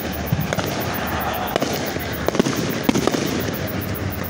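Aerial fireworks going off: an irregular string of sharp bangs from bursting shells, sometimes two in quick succession, over a steady background noise.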